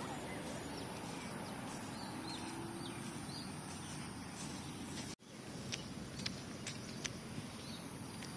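Quiet, steady outdoor background noise with a few faint bird chirps. About five seconds in the sound cuts out for an instant, and a few light ticks follow.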